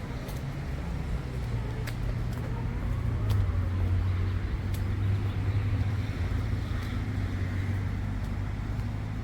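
Low hum of a motor vehicle engine that swells about a third of the way in and then eases off, with a few faint clicks.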